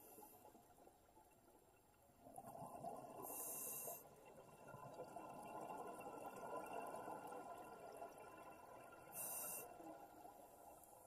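Faint underwater water noise, a low murmur of moving water, with two brief high hisses, one about three seconds in and one about nine seconds in.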